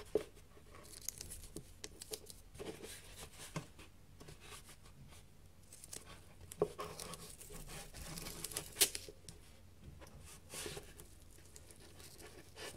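Masking tape being pulled off its roll and pressed onto a cardboard box, with the rustle of the cardboard being handled, and one sharp click about two-thirds of the way through.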